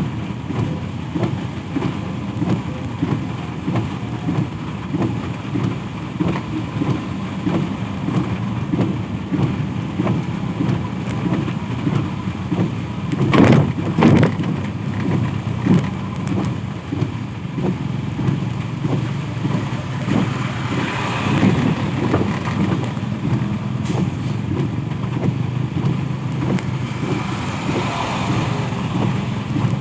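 Road traffic going by on a wet road in the rain: a steady low rumble of engines, a louder passing event about thirteen seconds in, and hiss swelling up twice as vehicles pass later on.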